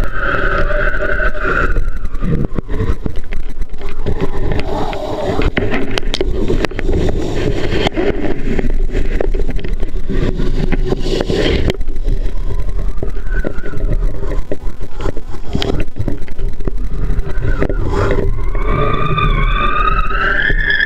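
Rushing wind and water noise on the camera's microphone as a kiteboard hydrofoil rides at speed, throwing spray. A high whistling tone, typical of a hydrofoil singing at speed, is heard for the first couple of seconds and comes back near the end, rising in pitch as the board speeds up.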